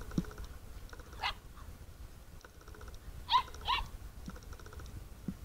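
English Golden Retriever puppies giving short, high-pitched barks: one about a second in, then two close together a little past three seconds.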